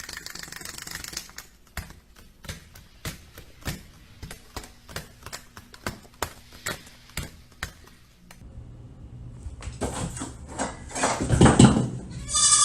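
A run of light, irregular taps or clicks, a few a second, for about eight seconds, then a cut to a noisier passage with a louder swell and a brief high-pitched warbling sound near the end.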